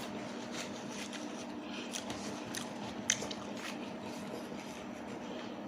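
Close-up eating sounds: chicken wings being chewed, with wet smacking mouth noises and small clicks, one sharper click about three seconds in. A faint steady hum runs underneath.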